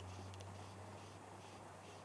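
Quiet background: a faint steady low hum under a light hiss, with no distinct sound event.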